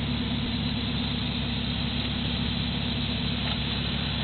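Off-road 4x4 truck's engine running steadily at low revs, without revving.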